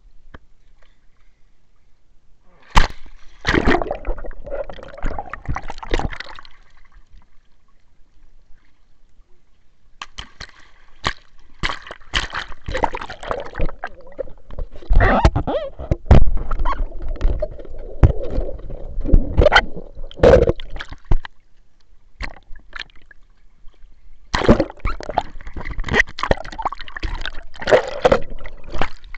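Pool water sloshing, splashing and gurgling close around a waterproof action camera as it is dunked and moved through the water, with sharp knocks of water and hands against the housing. It comes in three bouts, about 3 to 7 seconds, 10 to 21 seconds and 24 seconds onward, with quieter stretches between.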